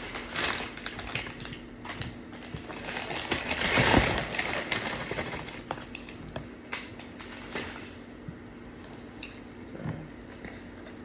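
Takeout food packaging being handled: paper rustling and crinkling with scattered clicks and taps, loudest about four seconds in and quieter near the end.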